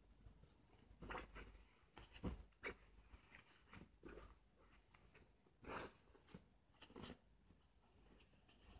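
Faint handling noises from an underwear package being opened: a handful of short, irregular crinkles and rustles, the loudest about two seconds in and again just before six seconds.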